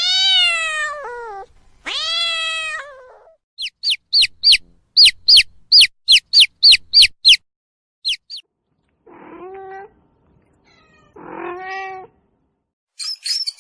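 Domestic cat meowing twice, two long falling meows. A quick run of about a dozen very high, short squeaks follows, about three a second, then two softer, lower calls.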